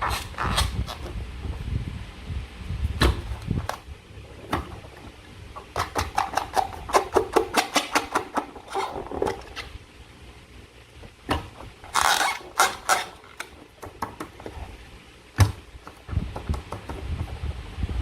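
Slime being handled and squished: irregular sticky clicks and crackles, with a quick run of clicks in the middle and a short noisy burst about two-thirds of the way in.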